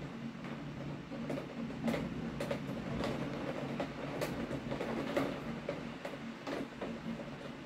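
Heavy rain falling steadily, with irregular sharp ticks of drops striking a hard surface close by.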